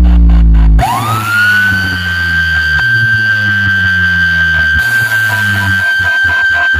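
Loud electronic DJ dance music blasting from a stacked sound-box rig of two bass bins, two mid cabinets and horn tweeters. Heavy deep bass drops out under a second in, and a siren-like synth tone sweeps up and holds high and steady over a lighter pulsing bass line.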